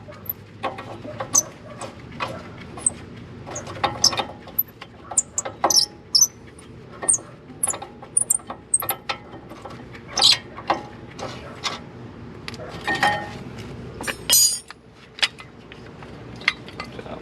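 Irregular metallic clinks, clicks and scrapes from handling brake caliper parts and pads with tools, dozens of sharp knocks in no regular rhythm.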